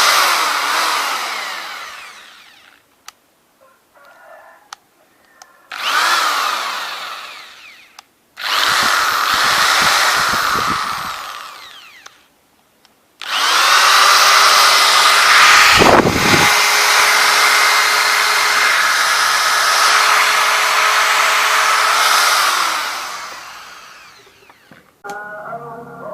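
Cheap 10 mm, 350 W corded electric hand drill running with no load: it coasts down, then is triggered three times, each time spinning up with a rising whine, running steadily and coasting down, the last run lasting about nine seconds.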